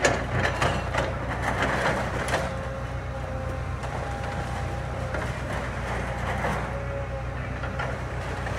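Kobelco excavator's diesel engine running steadily with a thin, steady whine, while old barn timbers crack and snap under the machine in a cluster of knocks during the first two and a half seconds.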